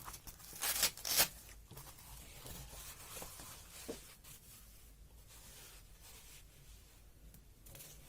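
Handling noise: a few short scratchy noise bursts in the first second and a half, then a couple of faint ticks over a low, even background.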